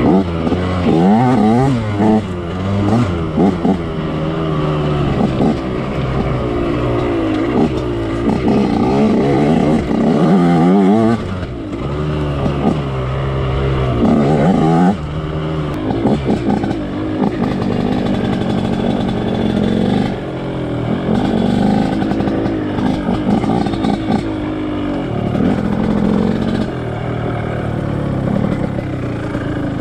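Two-stroke dirt bike engine being ridden, revving up and down over and over with the throttle, its pitch rising and falling every second or two. It settles into steadier running in the second half.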